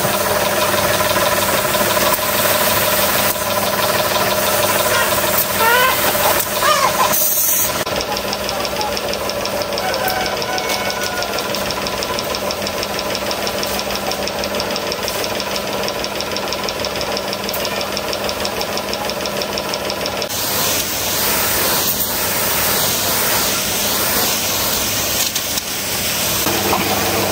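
A motor or engine running steadily with a constant hum; its sound changes sharply about seven seconds in, and for a while after that a fine, fast, even ticking rides on top.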